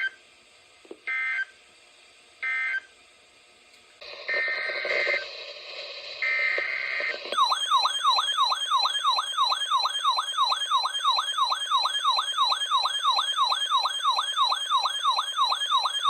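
NOAA Weather Radio emergency alert signalling: three short buzzy data bursts mark the end of one message, then two longer data bursts over radio static announce the next alert. About seven seconds in, a loud warbling siren-like alert tone starts and sweeps up and down about three times a second.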